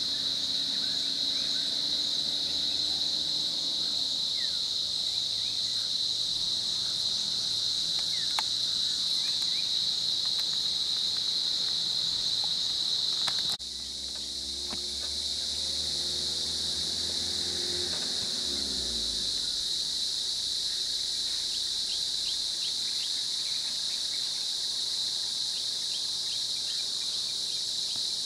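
A steady, high-pitched chorus of insects. A vehicle engine hums low for a few seconds just past the middle, falling in pitch, and a few faint bird chirps are heard.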